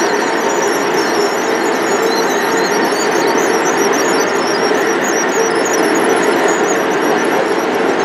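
Model train running on the layout track: a steady running noise with high, flickering squeals from wheels on the rails.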